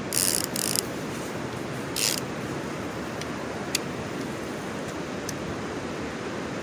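Steady rushing background noise on a riverbank, with three short hissy scrapes in the first two seconds and a few faint clicks later on.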